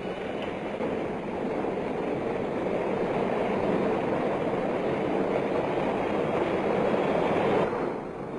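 Steady roar of airliner engines, a dense rushing noise that drops sharply in level near the end.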